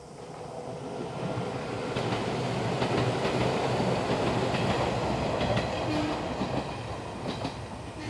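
Izuhakone Railway Daiyuzan Line electric train passing by. The running noise swells over the first two seconds and holds with the wheels clacking over rail joints, then fades toward the end.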